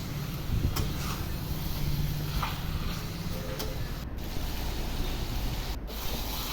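Spiced chicken and potatoes sizzling in oil in a kadai as the kosha is fried down, nearly done, with a few light clicks and scrapes of the spatula against the pan.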